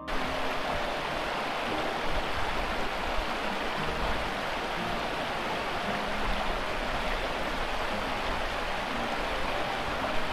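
Shallow stream running over stones and small rapids: a steady, even rush of water.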